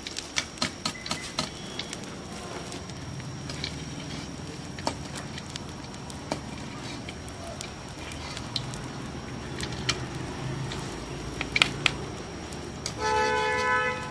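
Sharp metal clicks and taps of a slotted steel spoon against a kadai of hot ghee: a quick run of them in the first two seconds, then scattered ones. Near the end a horn sounds steadily for about a second, the loudest sound.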